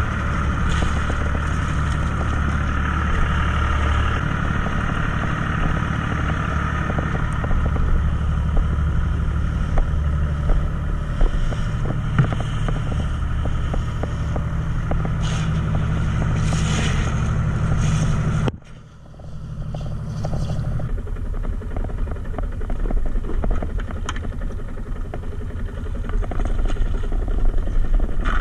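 Fishing boat's engine running steadily with a deep drone, with water rushing past the hull. About 18 seconds in the sound breaks off sharply and comes back quieter, the engine running more lightly.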